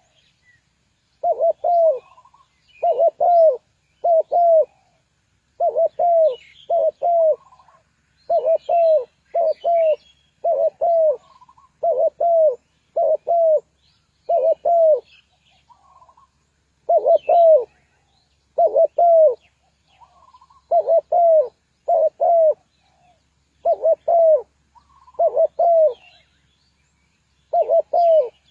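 Spotted dove cooing, repeating short phrases of two or three low arched coos with brief pauses between them, with faint high chirps of other small birds.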